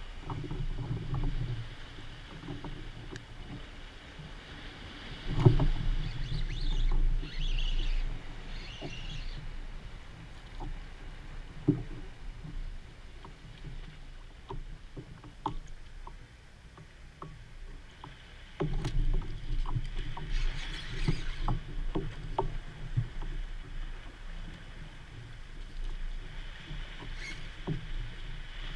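Water lapping and slapping against the hull of a plastic fishing kayak, swelling louder twice, with scattered small knocks and clicks.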